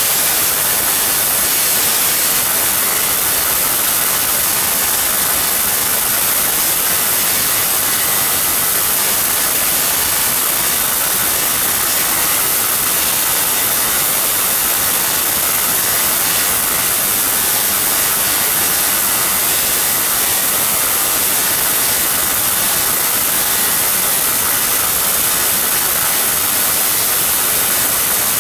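Large Tesla coil firing continuously, its sparks making a loud, steady, unbroken hissing noise.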